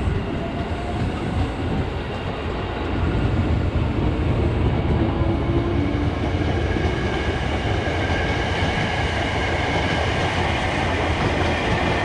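KRL TM 6000 electric commuter train, an ex-Tokyo Metro 6000 series unit, running past at close range: a steady rumble of wheels on rails that grows louder about three seconds in, with faint high whining tones over it.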